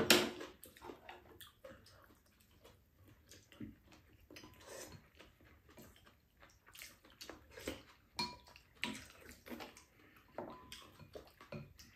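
Eating sounds: spoons and chopsticks clicking and scraping against a frying pan and bowls, with wet chewing and sips of soup. Short, scattered clicks, the loudest right at the start.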